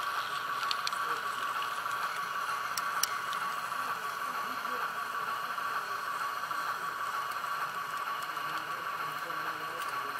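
Model train running on the layout track: a steady whirring hiss with a few sharp clicks, about a second in, around three seconds in and again near the end.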